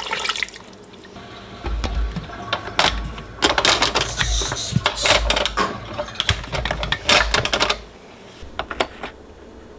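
A short splash of water poured into a slow cooker's crock, then a few seconds of clattering and sharp clicks as the glass lid is set on and its wire clip latches are fastened.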